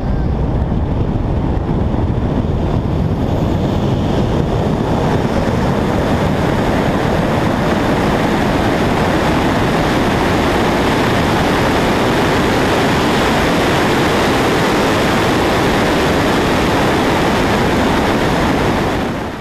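Wind and road noise rushing over the microphone of a camera mounted on a 2009 Chevrolet Cobalt SS accelerating flat out in a roll race. The rush grows brighter over the first few seconds as speed builds, holds steady, and cuts off suddenly at the end.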